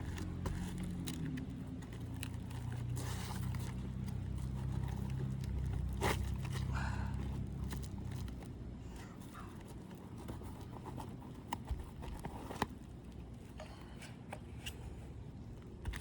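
Scattered scrapes and sharp knocks as a roofer works loose brittle asphalt shingles and their nails. A low hum runs under the first half and fades out.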